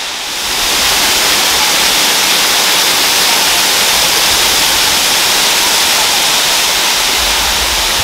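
Waterfall, a steady rush of falling water close by, growing louder about half a second in and then holding even.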